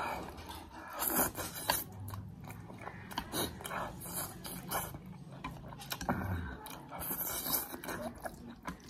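Close-up eating sounds: crunchy bites and wet chewing of a whole green chili pepper, then noodles being slurped near the end.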